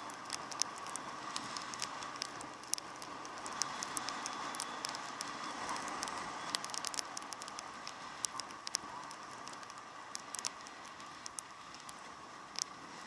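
Raindrops striking the camera in sharp, irregular ticks over a steady, muffled rush of noise.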